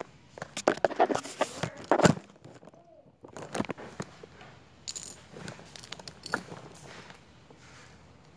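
Clicks and plastic clatter of Lego bricks being pried apart by hand, in a quick flurry over the first two seconds, then scattered single clicks.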